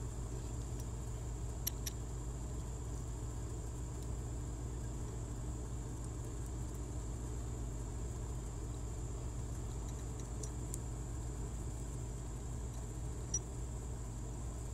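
A steady low hum with a thin high whine above it, and a few faint metal clicks as a Torx bit socket is turned by hand on the shifter retainer's loosened screws.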